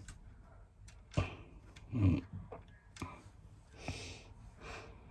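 A few light clicks of plastic fuse beads being set onto a plastic pegboard, among heavy breaths; the loudest sound is a short low breath about two seconds in.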